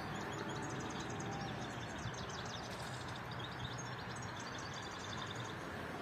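Small birds chirping, many short high chirps one after another, over a steady outdoor background hiss.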